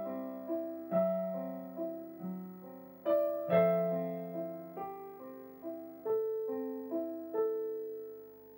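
Solo piano playing a slow melody, each note struck and left to ring out.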